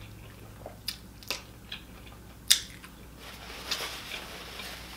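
Mouth chewing a Burger King triple Whopper with bacon, with a few sharp wet smacks, the loudest about two and a half seconds in. A paper napkin rustles softly near the end.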